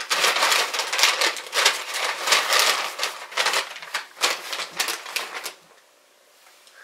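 A brown paper bag and a plastic bag crinkling and rustling as they are handled, in quick irregular crackles that stop about five and a half seconds in.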